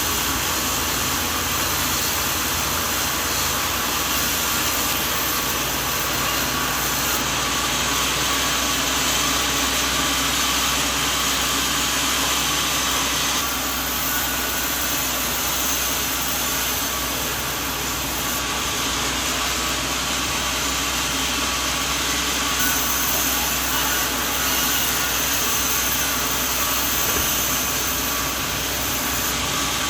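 A sawmill running steadily: a continuous engine hum with a broad, hissing machine noise. The tone shifts slightly every few seconds.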